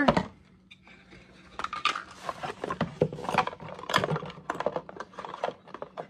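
Hard plastic vacuum attachments clicking and knocking against each other and the cardboard box as they are handled and lifted out, with rustling of the bubble-wrap packing.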